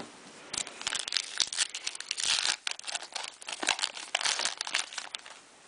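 Trading cards being handled and shuffled between reads: irregular crinkling and rustling of card stock, with small clicks.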